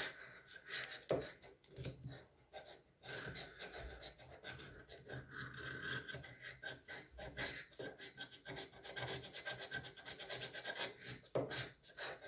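A metal-tipped scratching tool scraping the coating off a paper lottery scratch card in quick, short, repeated strokes.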